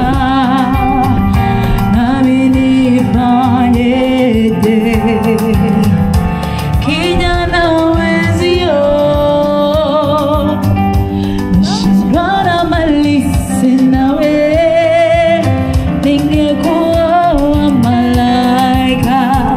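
A live singer performs into a microphone with keyboard accompaniment, amplified through a PA speaker. The melody has wavering held notes.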